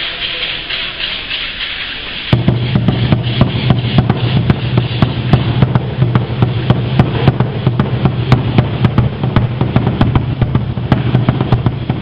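Rattles shaking steadily, then about two seconds in a large upright Aztec drum (huehuetl) starts a fast, even beat with deep strikes. The rattles carry on over the drum.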